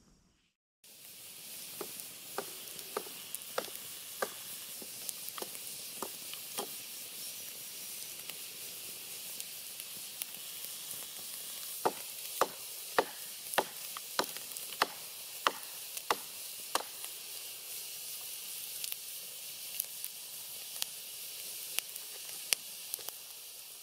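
A thick slice of sausage frying on campfire embers, starting just under a second in: a steady sizzling hiss with frequent sharp pops.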